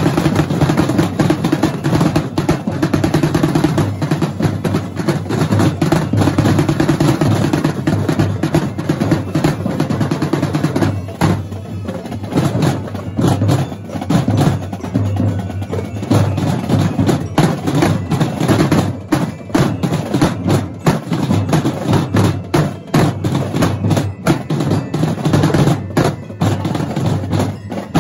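A massed drumline of drum and bugle corps drummers playing snare and marching drums with sticks: dense rapid rolling for about the first eleven seconds, then sharper, separate rhythmic strikes with short gaps.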